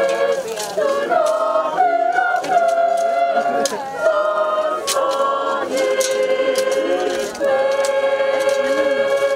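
A group of voices singing unaccompanied, a cappella, with the melody settling into long held notes in the second half.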